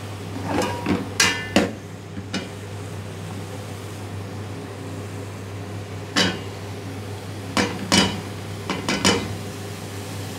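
Metal slotted spoon clinking and scraping against an aluminium cooking pot as chopped tomato and potato go in, in two short clusters: about a second in, then again from about six to nine seconds. A steady low hum runs underneath.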